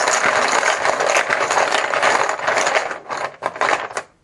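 Poker chips shaken and mixed in a bucket: a dense, continuous plastic clatter that thins into a few separate clacks near the end and stops about four seconds in.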